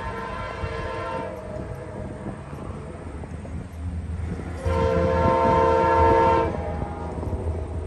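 Approaching train's locomotive air horn sounding for a grade crossing: a chord blast that ends about a second in, then a second blast starting near the four-second mark and growing louder, over a low rumble from the train.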